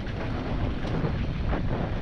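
Wind buffeting the camera microphone on a fast mountain bike descent, with the tyres running over rocky, wet trail and a few short knocks and rattles from the bike.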